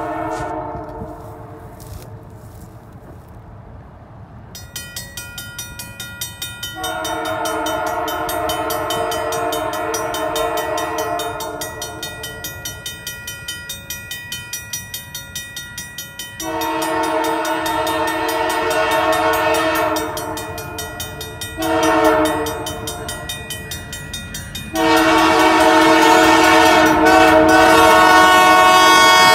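Canadian Pacific Holiday Train locomotive sounding its horn in the grade-crossing pattern of long, long, short, long, a chord of several tones with the last blast the loudest. Under it a grade-crossing bell rings rapidly and steadily, signalling the train's approach to the road crossing.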